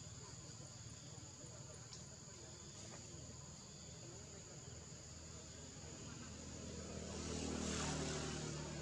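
Steady high-pitched insect drone over a low background rumble. About seven seconds in, a passing motor vehicle's engine swells up to a peak near the end.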